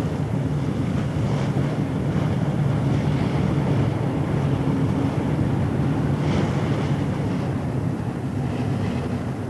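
Steady low engine drone under a rush of wind and water, as heard aboard a boat on open water. A few faint, brief higher sounds rise over it.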